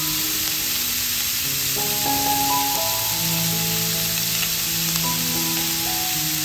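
Pork pieces sizzling in a hot frying pan, a steady hiss, under soft background music.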